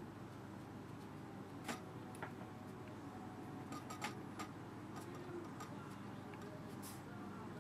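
A flat watercolour brush working on paper, giving a handful of small, irregularly spaced ticks and taps over a faint steady room hum.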